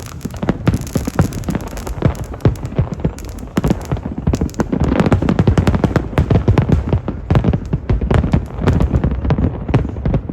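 Fireworks display: a dense, irregular run of bangs and crackles, busiest about halfway through.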